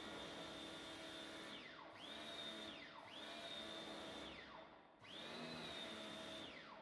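Electric motor of a hose-fed cleaning machine whining steadily while the spray gun's trigger is held. It cuts out four times, its pitch falling as it spins down, and starts up again in between.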